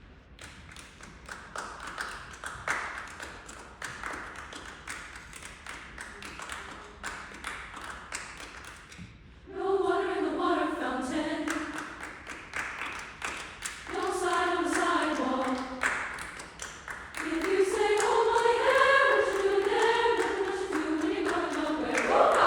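Mixed SATB choir performing a cappella: for about the first nine seconds only rhythmic clapping is heard, then the voices come in together in harmony, singing in short phrases that grow fuller.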